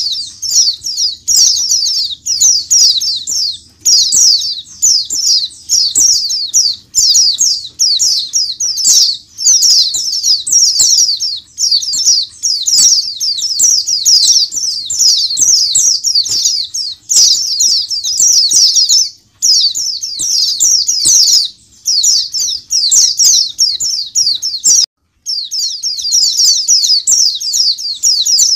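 A crowd of caged white-eyes (pleci) singing and twittering together: a dense, high-pitched chatter of fast overlapping notes with only brief pauses, cutting out for a moment near the end.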